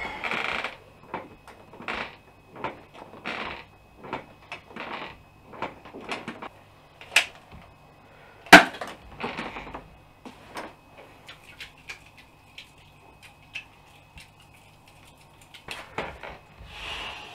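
Hands handling a small object: a scatter of clicks, taps and short rustles, with a sharp click about seven seconds in and a louder one about eight and a half seconds in.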